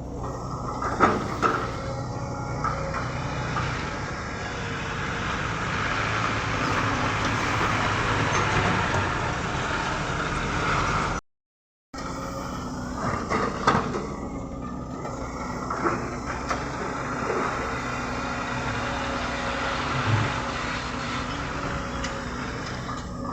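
Excavator's diesel engine running steadily under load, with occasional metallic knocks and clanks from the working machine. Its sound drops out for half a second about halfway through.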